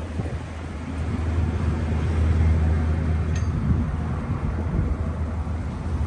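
Wind gusting over the microphone, a buffeting low rumble that swells strongest about two to three seconds in, with a faint rush of stirred foliage.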